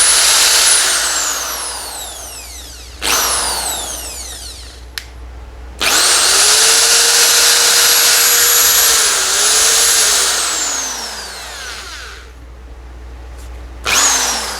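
Rapax 13 mm electric drill's brushed motor run in bursts: each trigger pull spins it up to a steady high whine, and on release it winds down with a falling whine, four times over, the longest run lasting about three seconds. It has just been rebuilt with new bearings and runs without the noise that the broken bearing made.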